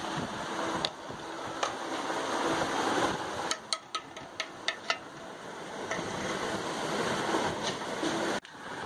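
Milkshake mixture being churned in a large metal pot: a steady, even noise of moving frothy liquid, with a quick run of about six sharp clinks of a utensil against the metal about halfway through.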